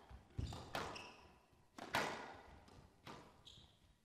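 Squash ball being struck back and forth in a rally: a series of sharp knocks from racket and wall, roughly half a second to a second apart, each ringing on in the glass-walled court, the loudest about two seconds in. Short high squeaks from the players' shoes on the court floor come between the hits.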